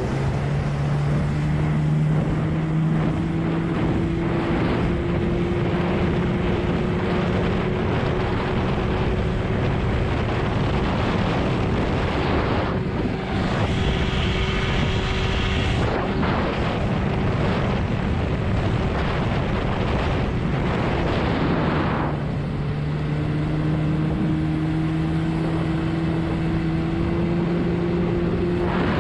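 20 hp Evinrude outboard motor running hard, pushing a 12 ft hydroplane at planing speed, with wind and water rushing. The engine note climbs over the first few seconds, turns harsher for a few seconds about 13 seconds in, dips about 22 seconds in, then climbs again.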